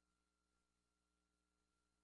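Near silence: dead air with only a faint, steady hum.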